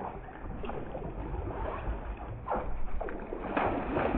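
Water splashing beside a boat as a hooked fish thrashes at the surface, with a few splashes in the second half.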